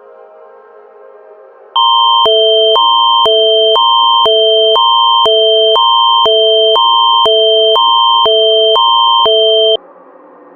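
Synthesized emergency-alert attention tone: a two-note chord alternating high and low every half second over a steady high whistle, with a click at each change. It comes in loud about two seconds in, runs for about eight seconds and cuts off suddenly, over a faint ambient music drone.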